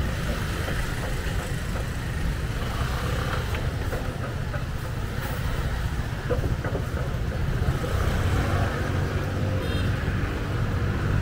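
City street traffic: a steady low rumble of passing cars and other motor vehicles.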